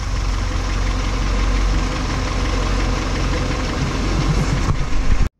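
Kia Pride's carbureted four-cylinder engine idling steadily with the throttle released, after its carburetor butterfly and idle were adjusted to cure stalling at idle. It cuts off suddenly near the end.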